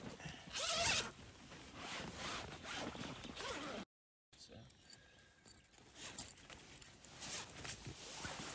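Zip on a wet nylon carp retention sling being drawn open in short rasping pulls, with the fabric rustling as it is folded back. The sound drops out completely for a moment about halfway.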